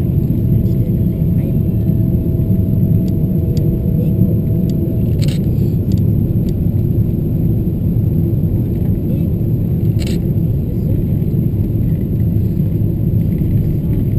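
Cabin noise of a Boeing 777-200ER on approach: a steady low rumble of its engines and the airflow, heard from a window seat over the wing. A faint steady whine stops about five seconds in, and there are a couple of light clicks.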